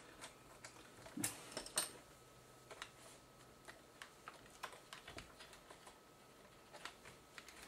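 Light, scattered clicks and ticks of a small screw being fitted and driven into a camcorder's plastic side casing, busiest about a second in.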